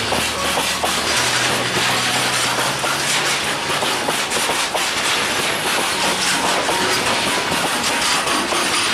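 Freight train wagons rolling past close to the track: a steady rumble of steel wheels on rails with a rapid, irregular clatter and clicking from the wheels and couplings.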